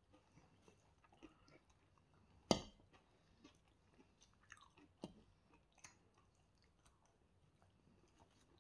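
Close-miked chewing of chicken shawarma and pita bread: soft, wet mouth clicks scattered throughout. One sharp click about two and a half seconds in is the loudest sound, with a smaller one about five seconds in.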